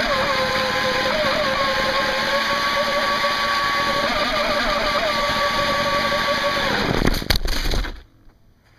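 Electric motor of an NQD RC jet boat whining under throttle over a steady hiss. The pitch wavers at first, then holds steady, and about seven seconds in it drops and stops, followed by a few sharp knocks before near quiet. The motor bearings are rusty and have just been oiled, and the owner says it sounds awful.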